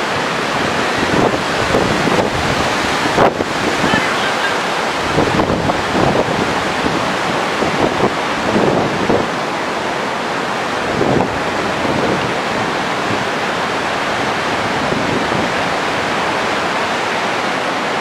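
Heavy surf on a stormy sea: waves breaking and rushing ashore in a steady, loud wash of noise. Gusts of wind buffet the microphone now and then, mostly in the first part.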